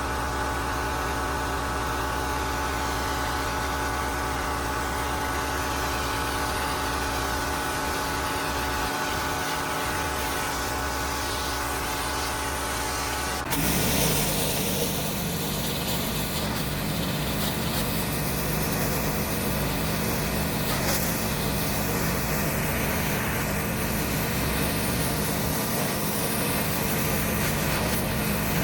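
Pressure washer running steadily, its engine giving a constant hum. About halfway through the sound switches suddenly to a louder, rougher rushing noise.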